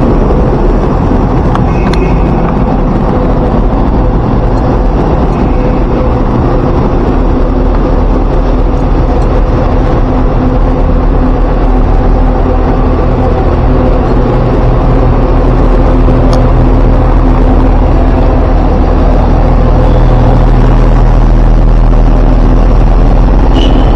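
City bus engine idling close by: a loud, steady hum with traffic noise around it, growing a little louder in the last third.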